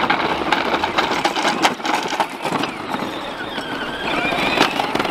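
Children's battery-powered John Deere ride-on toy tractors driving over a gravel track, their hard plastic wheels crunching and rattling on the stones. The whine of their electric gear motors comes through more clearly near the end.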